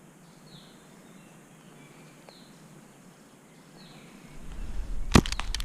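Quiet woodland background with a bird giving three short falling chirps. Near the end, a low rumble of movement on the microphone sets in and two sharp clicks ring out.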